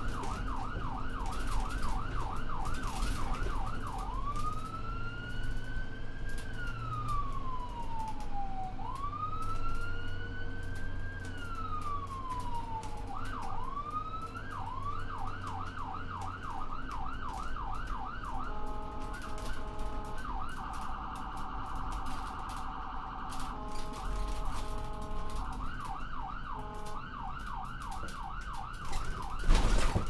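Electronic ambulance siren switching between modes: a fast yelp of about three sweeps a second, then two slow rising-and-falling wails, then the yelp again, then a very rapid warble flanked by stepped beeping tones, and the yelp once more. A low rumble runs underneath, and there is a sharp knock near the end.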